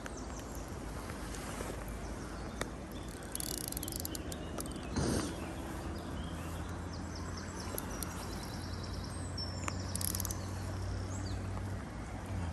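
Outdoor ambience with small birds singing in short repeated high phrases over a steady low hum, and one brief louder noise about five seconds in.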